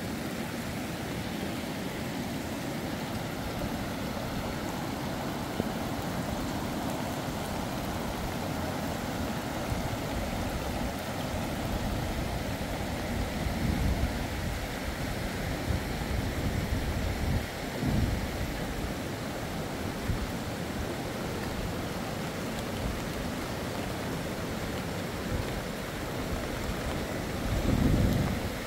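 Steady heavy rain mixed with rushing water. Low rumbles swell up a few times: about halfway through and again near the end.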